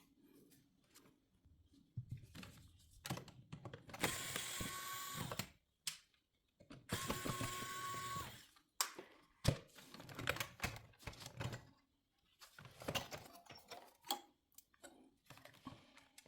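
Clicks, taps and knocks of plastic and metal parts being handled as a car head unit is taken apart, with two steady hissing stretches of about a second and a half each a few seconds in.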